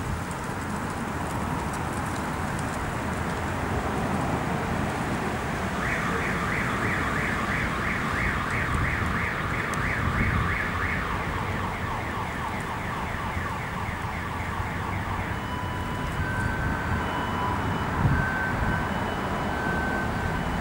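Car alarm going off over steady street noise: a fast repeating warble for about nine seconds, then switching to a pattern of separate beeps at different pitches.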